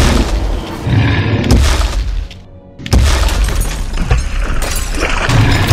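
Crashing and smashing sound effects, with booms and breaking, over background music, in two stretches with a short lull about two and a half seconds in: a monster smashing up a swimming pool.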